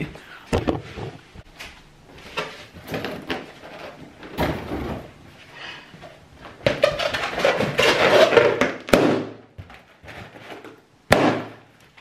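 Party balloons being handled and popped: rubbing and rustling, then a sharp pop about nine seconds in and a louder one about eleven seconds in.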